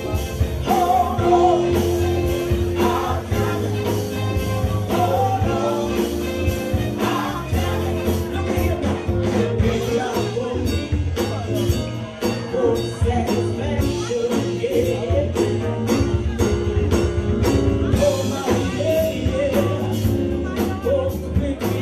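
Live band playing with a woman singing lead into a microphone, over a steady drum beat with cymbals.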